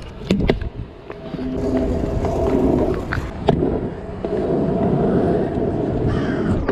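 Stunt kick scooter's wheels rolling over asphalt, a steady rough rumble with a faint hum, after a few sharp clacks at the start.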